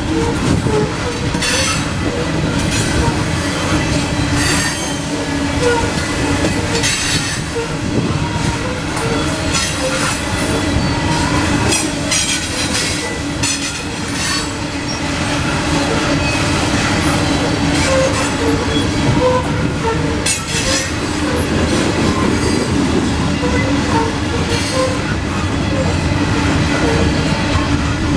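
Loaded coal hopper cars of a CSX freight train rolling past on steel wheels: a steady rumble with repeated clacks as the wheels cross rail joints.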